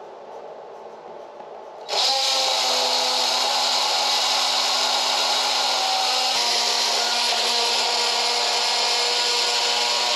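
A power tool's motor starts about two seconds in and runs at a steady, high whine, dipping slightly in pitch partway through.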